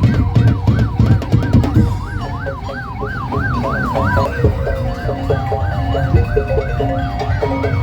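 A siren wailing rapidly up and down over loud music. Heavy drumbeats drop back about two seconds in, and a repeating line of short melodic notes carries on under the wail.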